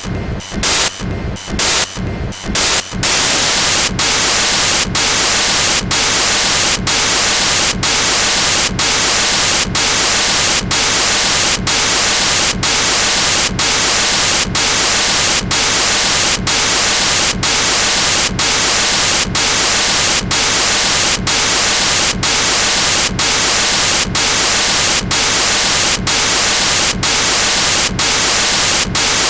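A long freight train's cars passing close by, heard as a loud, steady rushing noise that dips briefly at even spacing: about twice a second at first, then about once a second.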